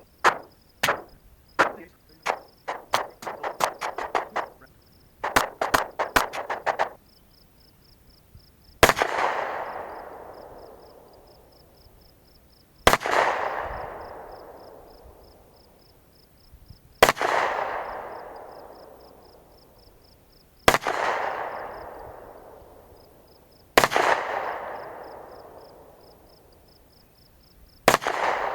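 Gunfire: a quick string of shots in two bursts over the first several seconds, then six single shots a few seconds apart, each trailing a long rolling echo.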